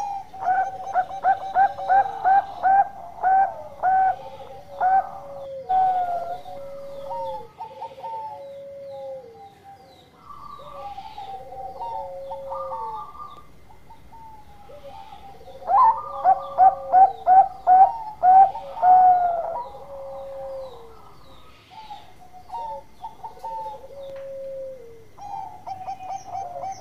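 Bangkok-strain zebra dove (perkutut) singing. It gives two bouts of quick staccato coos, about four a second, one at the start and one a little past the middle. Between the bouts come repeated long coos that drop in pitch at the end.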